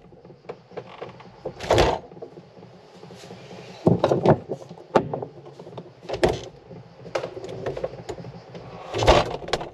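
Refrigerator being rummaged through: bottles and containers knocking and clinking as they are handled on the shelves and in the door, with a string of small clicks and several sharper knocks, the loudest one near the end.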